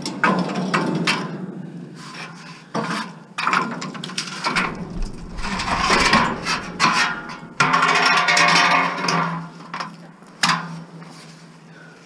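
Scrap metal being handled by hand: several sharp knocks and clanks with scraping and rattling between them, as a long metal piece is worked and moved.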